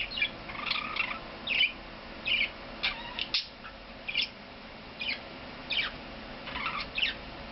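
Pet budgerigar chirping, a string of short, high chirps at an uneven pace of about one or two a second.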